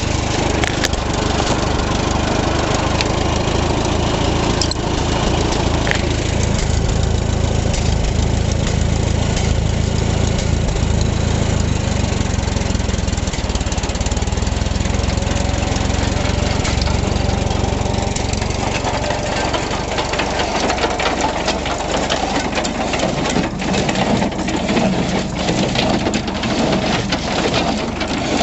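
Allis-Chalmers WD tractor's four-cylinder engine running steadily under PTO load, driving a John Deere 14T hay baler converted into a log splitter, with the baler's mechanism knocking along. The engine note shifts partway through.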